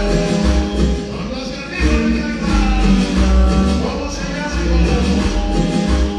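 Latin dance music with a sung vocal over a steady, pulsing bass beat, played loud through a sonidero DJ sound system for couples dancing.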